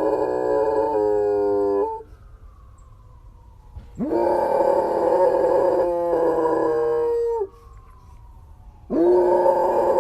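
A dog howling in long drawn-out howls with short pauses between: one howl ends about two seconds in, a new one rises in about four seconds in and holds for several seconds, and another starts near the end.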